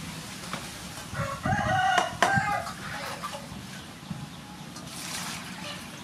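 A rooster crowing once, a held call of about a second and a half starting about a second in, with a few light clinks of metal dishes.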